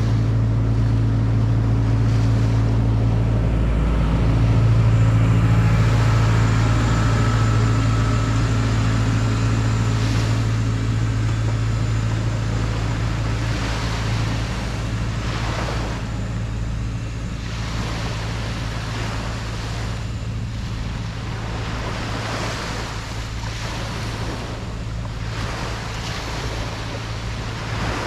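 Ocean waves washing ashore in repeated swells, under a steady low motor drone that is loudest in the first half and fades away after about halfway.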